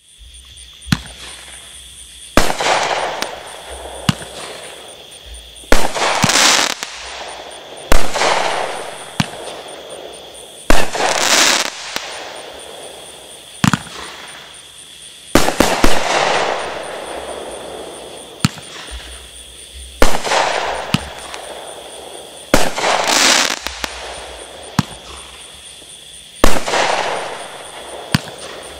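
A 500-gram consumer firework cake firing its shots one after another, about every two to three seconds. Each shot is a sharp bang followed by a rush of noise that fades over a second or two.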